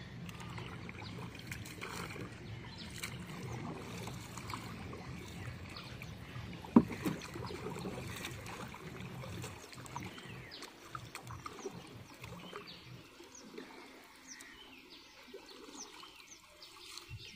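Wooden paddle stroking and swishing through shallow water as a small boat is paddled along, with one sharp knock about seven seconds in. It grows quieter after about ten seconds, leaving only small scattered ticks and drips.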